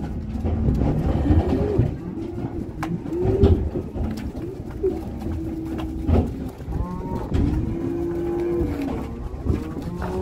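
Animal calls: a string of short rising-and-falling calls, then one longer held call a little past the middle, over a low rumble.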